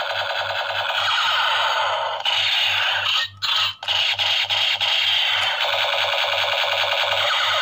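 Toy helicopter's battery-powered sound effect: a harsh, buzzy electronic helicopter noise from a small speaker with a rhythmic rotor chop about four times a second, cutting out briefly twice around the middle.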